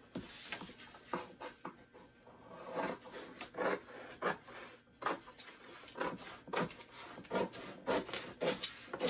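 Scissors cutting across a sheet of sublimation paper: a run of crisp snips, faint at first and then steady at a little under two a second.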